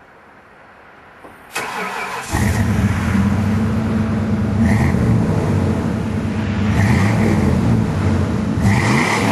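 A vehicle engine with an aftermarket exhaust is cranked and catches about two seconds in, then runs loud and steady, its pitch shifting up and down a little near the end.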